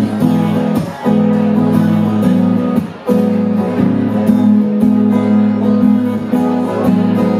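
Steel-string acoustic guitar strummed in sustained chords, played live, with brief breaks between chords about one and three seconds in.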